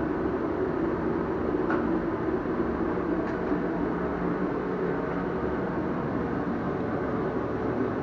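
Steady, unbroken machine noise, like a blower running continuously.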